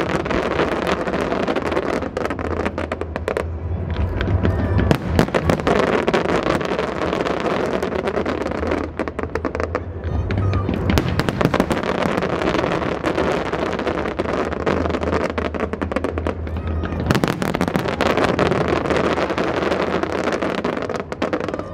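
Large aerial fireworks display: a continuous barrage of overlapping bangs and crackles from shells and crackling stars bursting, with music playing underneath.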